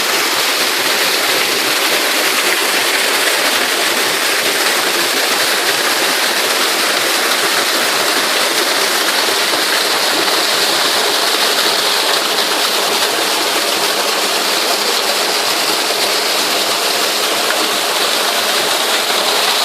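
Waterfall water pouring and splashing in a loud, steady rush.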